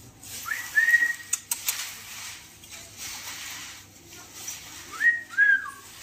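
Indian ringneck parakeet whistling: a short clear rising-then-held whistle about half a second in, and another whistled phrase near the end that rises, holds and then drops in pitch. A couple of sharp clicks come between them.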